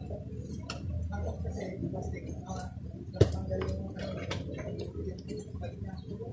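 Small clicks and rustles of thin insulated wires being handled and twisted together by hand, with one sharp click about three seconds in, over a low steady hum.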